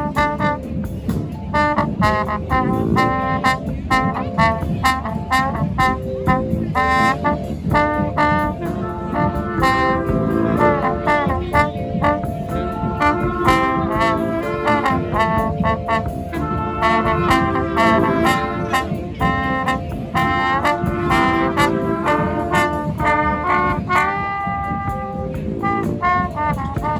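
Live street brass band playing: several horns in melody and harmony lines over a steady drum beat.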